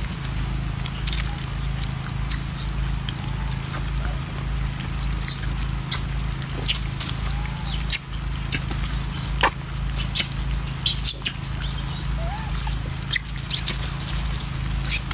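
A troop of macaques feeding on banana chunks: scattered sharp clicks and smacks of handling and chewing, with a few brief squeaky monkey calls, over a steady low hum.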